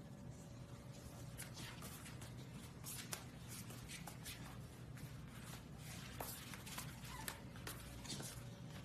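Faint scuffing and rustling of a golden retriever's fur and paws brushing against the floor as it rubs its head down and rolls over: a string of short scratchy brushes.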